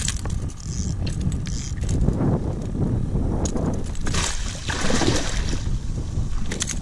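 Alligator gar thrashing and splashing at the surface as it is scooped into a landing net beside a kayak, loudest from about four seconds in to about five and a half. Scattered clicks and knocks of rod and net against the hull.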